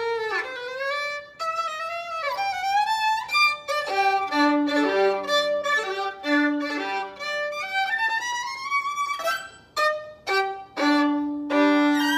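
Solo violin played with the bow: a melody whose notes slide in pitch over the first few seconds, then passages with two notes sounding together. Near the end come several short, separated strokes and then a held chord.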